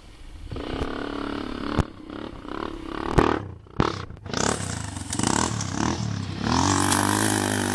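ATV engine running and revving, rising and falling in pitch, with a few sharp clicks. It drops out briefly a little past the middle, then comes back and revs higher near the end.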